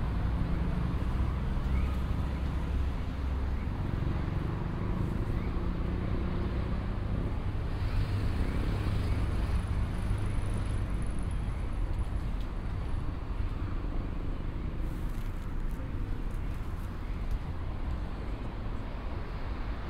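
Road traffic in a city street: a steady low rumble of cars, a little louder from about eight to eleven seconds in.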